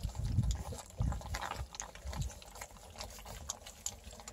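A litter of 4-week-old beagle puppies lapping and chewing milk-soaked kibble from a steel pan: irregular wet smacking and lapping clicks, with a few low thuds in the first two seconds.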